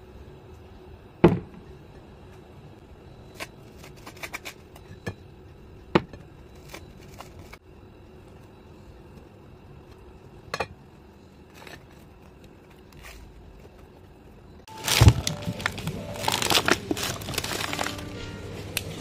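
A few sharp clinks and light scrapes of a table knife against a plate and jar while peanut butter is spread and a banana sliced, over a faint steady background. About fifteen seconds in, a sudden loud thump gives way to rustling of packaging and music.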